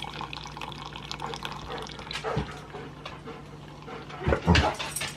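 Electric drip coffee maker brewing, coffee trickling and dripping into the pot over a steady low hum. A short louder sound comes about two seconds in, and two more around four and a half seconds.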